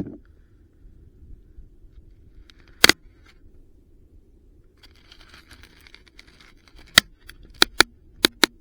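Small metal pieces being handled and knocked together, as junk is worked off a magnet-fishing magnet: a sharp clack about three seconds in, a scraping rustle a couple of seconds later, then five quick clicks and clacks near the end.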